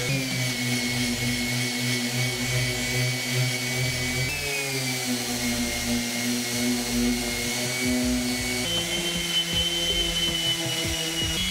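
Random orbital sander running steadily, sanding the edges of an ash and mahogany end-grain board, with a motor whine whose pitch jumps abruptly about four seconds in and again near nine seconds.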